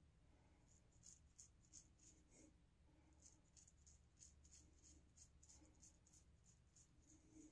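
Faint scratchy scraping of a three-piece safety razor's blade cutting through beard stubble on the neck in quick short strokes, about three a second.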